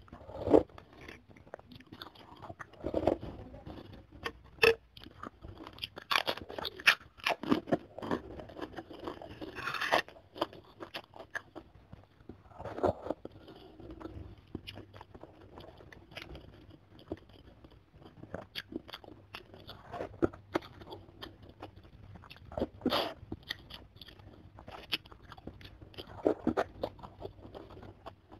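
Close-miked eating sounds: broth slurped from a spoon near the start, then irregular wet chewing, biting and crunching on chicken pieces, with lip smacks.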